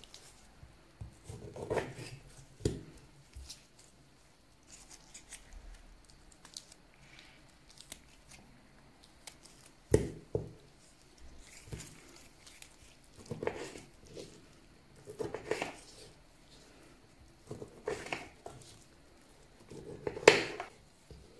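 Oranges being peeled and pulled apart by gloved hands on a wooden cutting board: scattered soft tearing and rubbing of peel and pith, with occasional knocks of fruit or knife on the board, the sharpest about ten seconds in and near the end.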